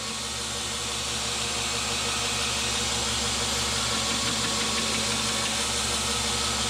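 Belt grinder running, its motor humming steadily under the hiss of a steel knife blade being ground on the sanding belt.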